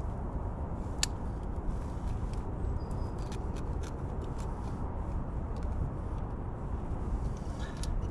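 Steady low outdoor rumble with scattered light clicks and taps, one sharper click about a second in.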